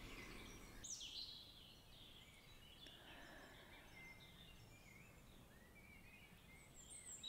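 Very faint birdsong over near silence: scattered short chirps and whistles, one sliding down in pitch about a second in.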